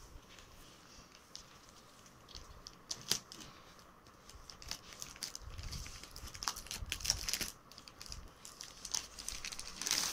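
Plastic courier mailer being handled and cut open with scissors: crinkling and rustling plastic with scattered sharp clicks and snips, busiest in the middle, and a louder rustle near the end.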